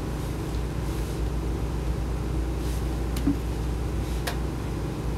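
Steady low hum and hiss of room noise, with a couple of faint clicks about three and four seconds in.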